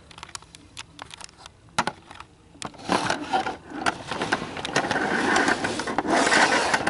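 Clicks and knocks of the camera being handled, then from about three seconds in a Lionel toy electric train running on its track close to the microphone: a steady mechanical whir and rattle of motor and wheels.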